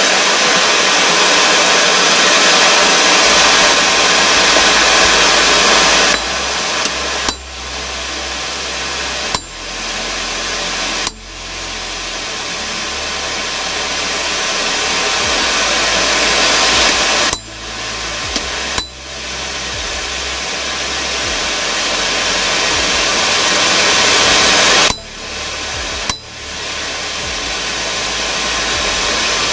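Forge running with its air blast, a loud even rushing noise while the blade reheats; the noise drops suddenly several times and swells back up over a few seconds.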